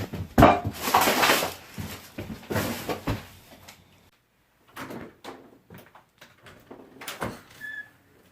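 A run of loud knocks and thumps, like a door or cupboard being handled, for about three seconds. The sound drops out briefly around four seconds in, then sparser sharp clicks and taps follow.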